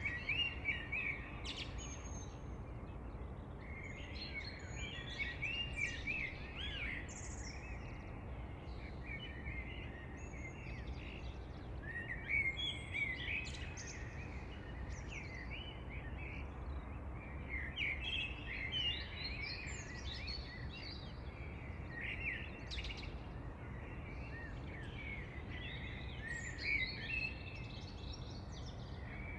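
Several songbirds chirping and singing in quick, overlapping phrases that come in clusters, over a steady low background rumble.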